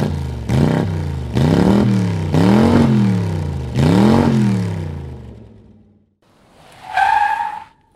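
A Matchfit dovetail clamp is forced along a dovetail groove in plywood finished with water-based polyurethane. It sticks and slips, making pitched squeaks that rise and fall about four times, then a shorter, higher squeal near the end. The sound is the sign of the polyurethane binding in the groove, which the woodworker suspects has swelled the groove walls.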